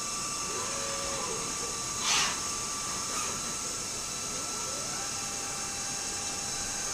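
Tornos Deco 20 Swiss-type CNC lathe running: a steady hiss with several high whining tones, short gliding tones as the spindles or axes change speed, and a brief louder hiss about two seconds in.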